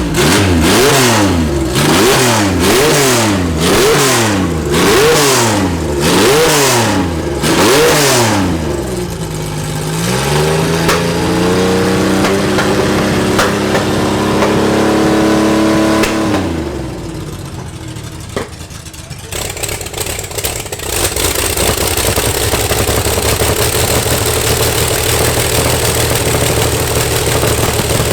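Racing car engine revved in sharp blips about once a second, eight times, then held at a steady raised speed before dropping away about 16 s in. Another engine runs steadily from about 20 s on.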